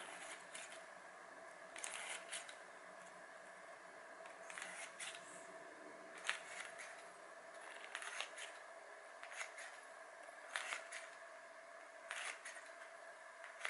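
Freshly sharpened Zwilling kitchen shears snipping through paper to test the edge: about eight short, crisp snips, roughly one every second or two, over a faint steady room hum.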